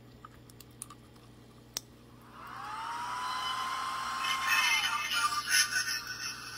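ToolKitRC M7AC charger playing its newly replaced startup sound as it boots: after a few faint clicks, a synthetic tone swells up and holds, then falls away into electronic music with a beat.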